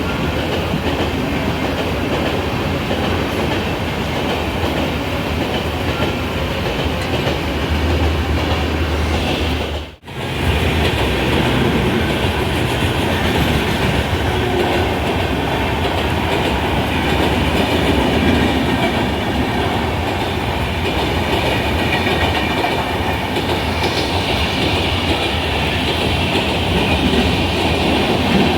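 Mumbai suburban local train running, a steady rumble with wheels clattering over the rail joints. The sound drops out sharply for a moment about ten seconds in, then carries on as before.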